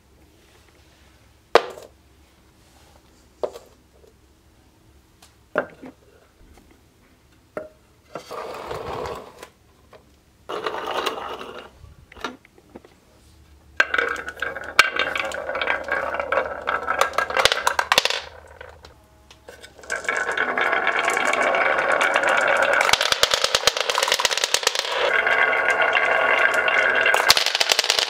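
Marbles rolling down the wavy grooves of a wooden HABA double-slope marble run and clattering out onto a hard floor. It opens with four sharp single clicks about two seconds apart. Then come a couple of short runs, and from about halfway a dense, continuous rattling and clicking of many marbles at once.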